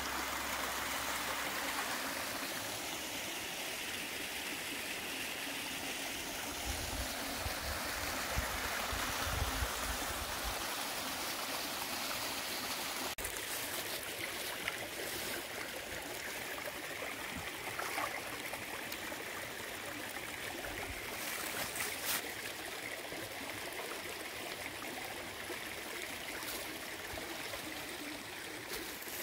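Small woodland stream running over rocks, a steady rush of water.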